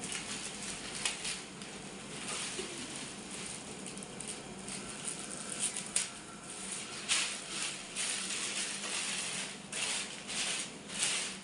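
Irregular rustling and light clicks of things being handled, with a steady hiss underneath.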